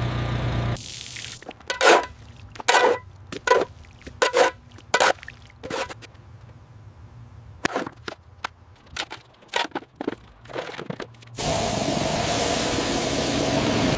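A small engine running for under a second, then a series of short, sharp scraping and knocking sounds at irregular intervals of about one a second. From about eleven seconds in, a steady hissing spray.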